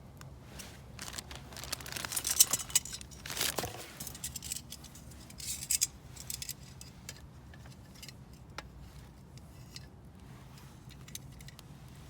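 Light metallic clinking and jangling mixed with rustling, in a dense cluster for a few seconds from about a second in, then scattered single clicks.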